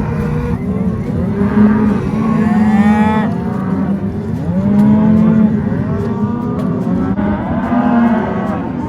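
A herd of cattle bawling: many overlapping moos at different pitches, some sliding up and down, with no break.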